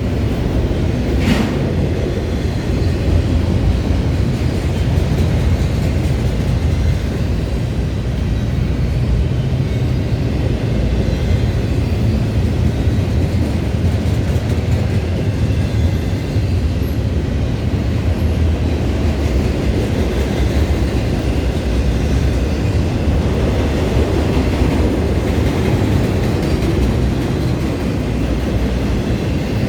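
Norfolk Southern train rolling past close by: a steady, loud rumble of wheels on rail, with a brief sharp noise about a second in.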